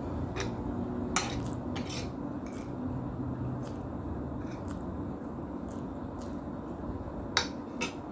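Eating at a table: a handful of sharp clicks of utensils against a dish, a couple about a second or two in and two more near the end, the last-but-one the loudest, over steady low background noise.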